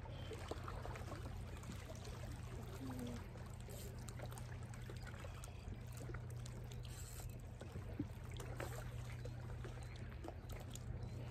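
Small waves lapping and trickling at the lake's edge, over a steady low hum.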